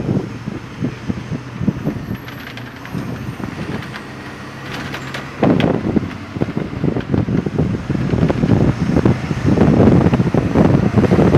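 Open-top sightseeing bus driving through town, heard from the open upper deck: engine running under uneven wind and road rumble. It grows louder and gustier about halfway through.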